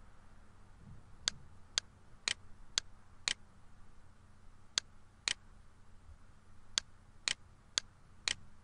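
Computer mouse button clicking: about a dozen short, sharp single clicks, several in runs about half a second apart, as points are picked on screen, over faint room hiss.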